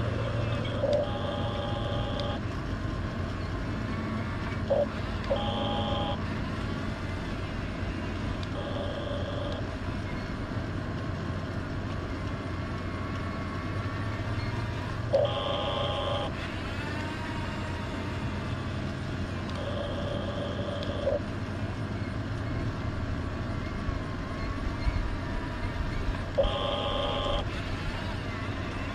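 Hunia 1569 RC bulldozer's small electric drive motors and gearbox whining in short bursts of about a second each, six times, over a steady low hum.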